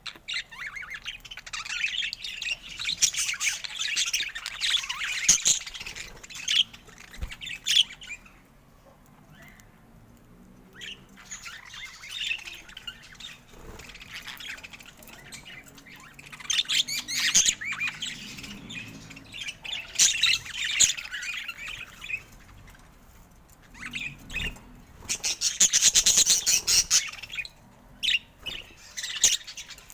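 Budgerigar chatter: rapid high chirps and warbles in bouts of several seconds, with brief quieter gaps between them.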